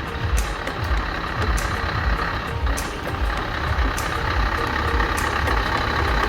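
Heavy truck's diesel engine running, a steady low rumble that pulses about twice a second under a constant wash of noise.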